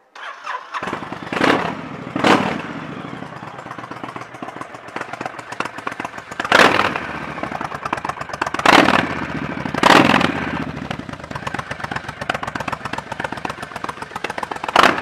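Honda VTX 1300's V-twin engine fired up, then idling with about six sharp throttle blips. The recording is thinned by a phone's noise-cancelling microphones.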